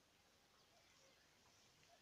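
Near silence: faint outdoor ambience with a few very faint bird chirps.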